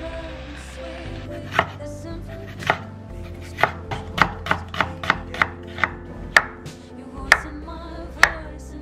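Large kitchen knife slicing red onion and button mushrooms on a wooden cutting board: about a dozen sharp knocks of the blade on the board, uneven in spacing and quickest in the middle, at about three a second. Background music plays under it.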